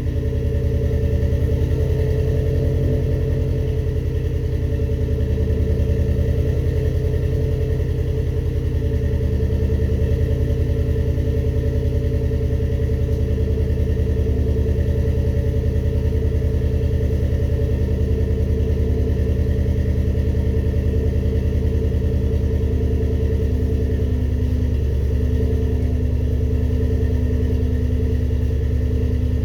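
Car engine idling steadily with a fast, even pulse and no rise in revs, running on its first start after a cylinder-head rebuild.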